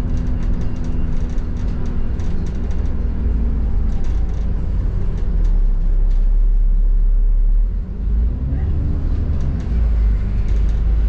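Double-decker bus in motion, heard on board: a steady low engine and road rumble with faint rattles. The engine note falls away around three seconds in and rises again about nine seconds in.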